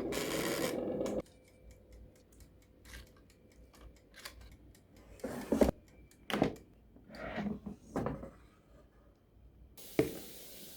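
Kitchen handling noises while cooking: a loud burst of noise with a rising tone in the first second, then scattered clicks, knocks and rubbing, and a steady hiss starting near the end.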